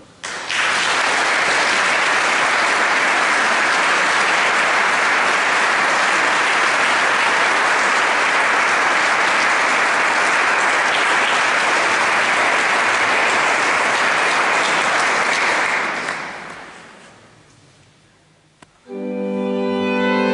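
Audience applauding steadily for about sixteen seconds, then dying away. About a second later, two violins and an organ begin playing with sustained notes.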